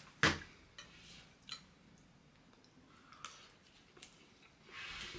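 A plastic supplement tub set down on a table with a single knock, then a few faint clicks of a fork against a plate as eating begins.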